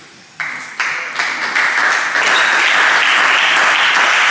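Applause breaks out suddenly about half a second in, swells over the next second or two and settles into steady clapping.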